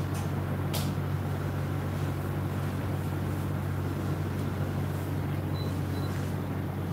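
Steady low hum with an even haze of room noise.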